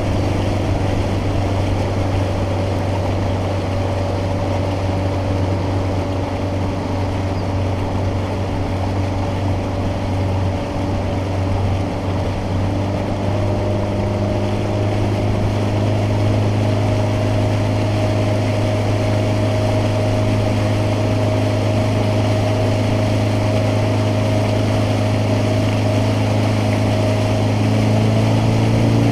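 Bass boat's outboard motor running steadily underway, a low, even drone over a hiss of wind and water. The engine note shifts and grows a little louder near the end.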